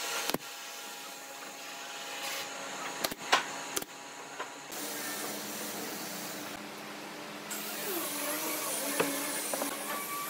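Pneumatic brad nailer firing into pine boards: one sharp shot just after the start, then three in quick succession about three seconds in. A steady machine hum runs underneath.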